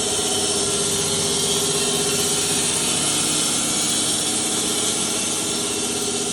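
Sawmill running steadily while milling larch: an even machine drone with a strong high hiss.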